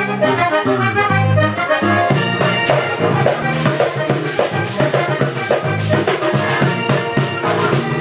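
Vallenato ensemble playing: a button accordion carries the melody over a bass line. About two seconds in, the guacharaca scraper and caja drum come in with a quick, steady rhythm.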